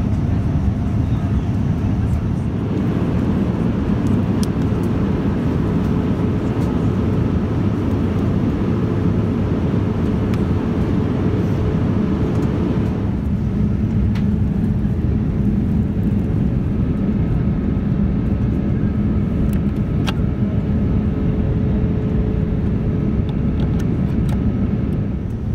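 Steady cabin noise inside a Boeing 787-9 airliner: an even low rush of air with a faint steady hum, its tone shifting slightly about halfway through.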